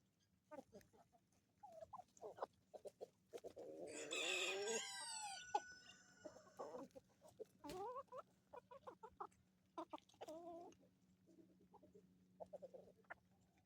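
A flock of chickens clucking softly, with short calls scattered throughout. A rooster crows once, loudly, about three to five seconds in. A faint steady low hum runs underneath.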